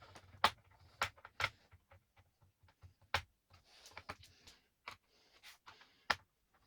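Irregular sharp clicks and taps, several of them loud, with light scraping in between: hands working on the laptop's plastic case and parts.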